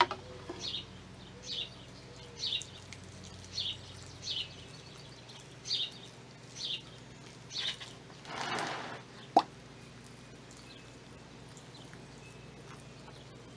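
A songbird repeating short, falling chirps, roughly one a second for the first eight seconds. Around eight seconds a brief rush of water pours from a plastic watering can onto potting soil, followed by one sharp knock.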